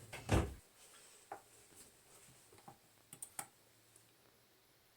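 Under-sink cabinet door knocking open with a thud, followed by several light, scattered clicks and knocks while reaching in to turn off the shut-off valves.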